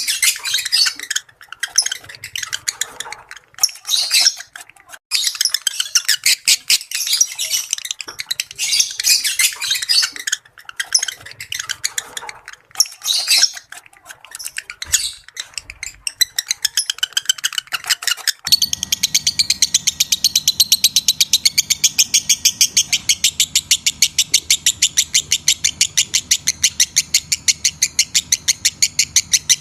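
Lovebirds giving shrill, irregular chattering chirps. About 18 seconds in, this cuts abruptly to rapid, evenly repeated chirping, about five a second, over a low hum.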